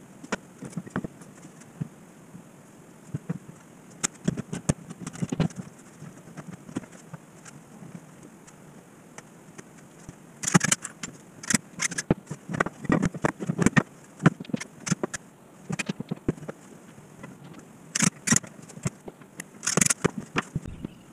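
Workbench clatter as pine frame parts and bar clamps are handled and set: irregular knocks and clicks, with a few short harsh rasping bursts.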